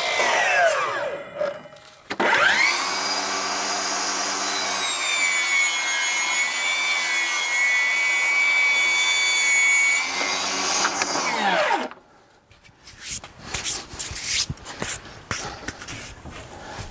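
A Milwaukee cordless sliding miter saw winds down after a crosscut. Then a cordless table saw spins up about two seconds in, rips a board lengthwise for about eight seconds, and winds down. Scattered knocks and clatter of handling follow near the end.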